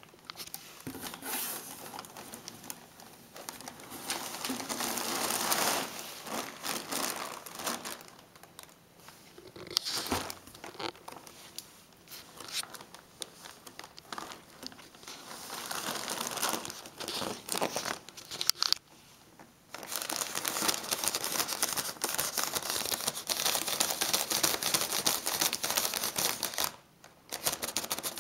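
Clear plastic packaging film crinkling and rustling as a kitten clambers and paws through it in a cardboard box. It comes in irregular spells, with two short pauses, one in the latter half and one near the end.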